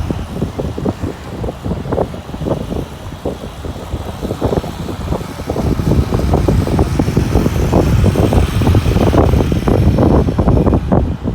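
Loud wind buffeting the microphone: a heavy, uneven rumble of gusts.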